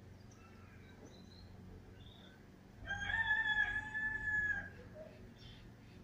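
A rooster crows once: a single long, held call of about two seconds, starting near the middle and dropping slightly at its close. Faint, short chirps from a small caged songbird come before and after it.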